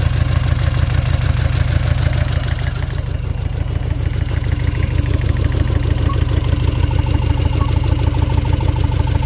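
Tata Zest engine idling unevenly with its third cylinder cut out during a cylinder-by-cylinder drop test. The car logs misfires on cylinders 3 and 4, which the mechanic later puts down to a cylinder-head problem that leaves the third cylinder without compression.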